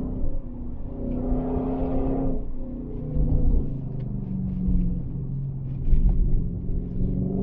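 Car engine pulling uphill, revving up, then dropping in pitch about two and a half seconds in as it changes gear, and building again, over a low road rumble.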